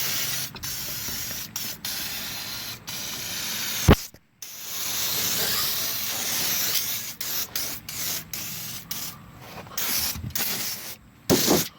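Aerosol spray can spraying a rust-treatment coating in long hisses broken by short pauses, with a sharp click about four seconds in.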